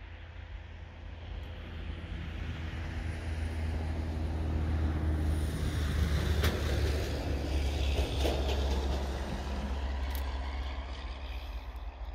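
Distant diesel freight locomotives approaching, a low engine drone that swells through the middle and eases near the end, under a steady low rumble of wind on the microphone.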